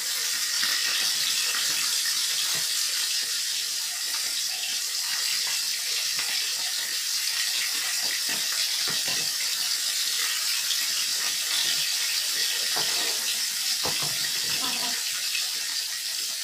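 Whole fish frying in hot oil in a wok: a steady sizzle, with a few faint knocks and scrapes of a utensil against the wok.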